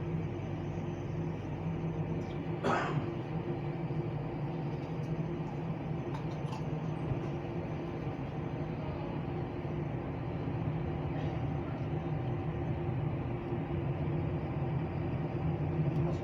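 Steady, even engine drone with a low hum and a few higher tones held level throughout. A single short knock about three seconds in.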